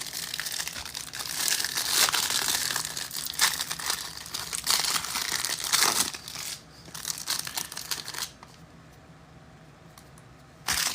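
Trading card packaging being torn open and crinkled by hand: a dense crackling and rustling, louder in several surges, for about eight seconds, then quieter apart from one short crackle near the end.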